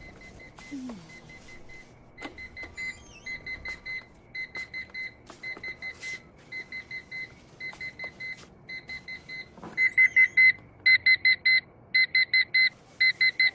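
Digital alarm clock beeping in quick repeated groups of four high beeps, faint at first and much louder from about ten seconds in.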